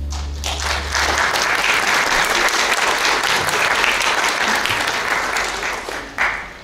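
Audience applauding for a string ensemble, starting as the last held note of the strings dies away in the first second. The applause tapers off near the end, with one sharp clap just before it stops.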